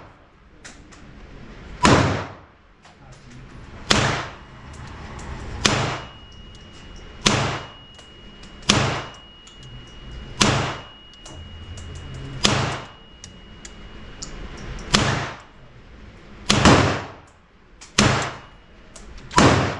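A firearm fired in slow, aimed single shots, about ten in all, one every two seconds or so, each shot echoing in an indoor range.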